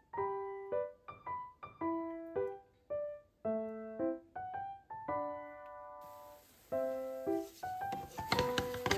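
Gentle solo piano music, single notes and small chords at an unhurried pace. About six seconds in, a soft hiss joins it, with a few light clicks near the end.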